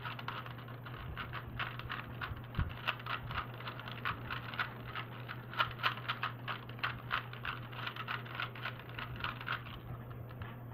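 3x3 Rubik's Cube being turned fast in a timed solve: a rapid, irregular run of plastic clicks as the layers snap round. The clicks stop near the end as the solve is finished.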